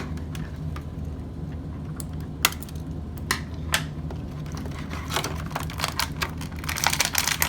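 Toy packaging being handled and pulled apart: scattered sharp plastic and cardboard clicks and crinkles, sparse at first and busier in the last couple of seconds, over a steady low hum.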